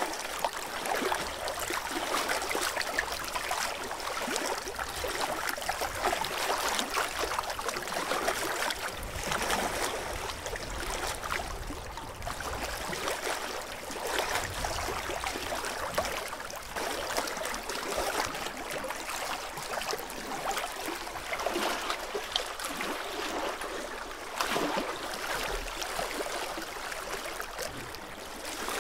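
Loch water lapping and trickling against a stony shore: a steady, rippling wash that swells and eases slightly.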